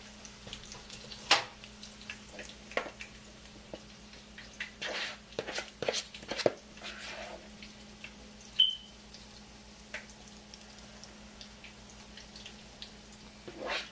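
A spoon clicking and scraping in a bowl of urad dal batter as batter is dropped into a pan of hot oil where vadas are frying, over a faint sizzle. About a dozen scattered clicks and taps; the sharpest comes about a second in.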